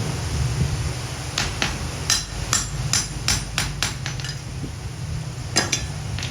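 Hammer blows on steel during axe forging: a quick run of about ten sharp strikes, roughly three a second, then a pause and one more strike near the end, over a steady low hum.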